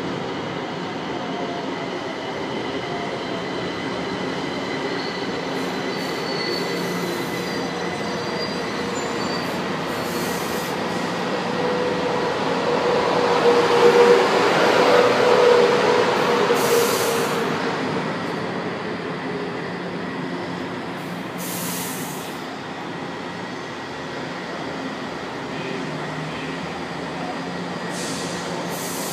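A São Paulo Metro Line 1 train pulling into the station and braking to a stop. The running noise grows loudest about halfway through, with a wheel squeal as the cars pass close, then eases off as the train slows. A few short hisses come through it.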